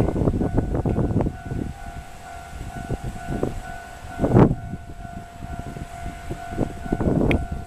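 Horn of the Resort Shirakami train held as one long steady blast, over irregular low rumbling and knocking that is loudest about four seconds in.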